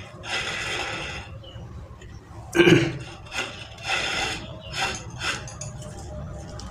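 Pump impeller being screwed by hand onto the threaded shaft of a monoblock water pump motor: intermittent metal scraping and rubbing, with one louder clunk about two and a half seconds in.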